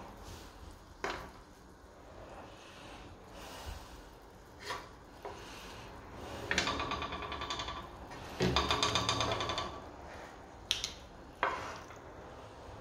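Silicone tongs knocking against and scraping a non-stick frying pan as chicken wings are lifted out: a few sharp taps, and in the middle two rasping scrapes each a second or so long.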